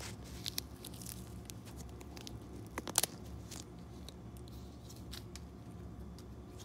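Light handling noises: scattered faint clicks and rustles, with a sharper double click about three seconds in, over a low steady hum.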